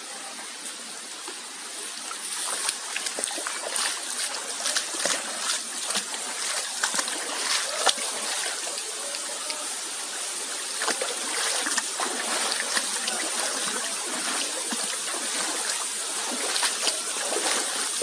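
Rushing water of a gorge stream below a waterfall, a steady hiss that grows louder about two seconds in, with frequent irregular short splashes and clatters over it.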